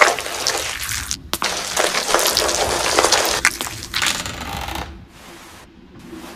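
Crackling, rustling sound effect with many scattered clicks and taps, dying away about five seconds in.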